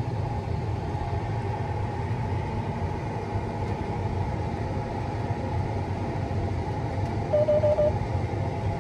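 Combine harvester running steadily in a low, even rumble. Four quick beeps sound about seven seconds in.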